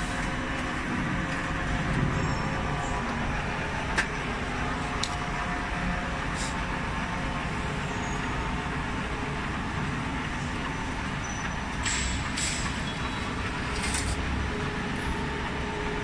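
Pittsburgh lock forming machine running steadily as a galvanized steel sheet is fed through its forming rollers, with a sharp metallic click about four seconds in and a few short metallic clinks near the end.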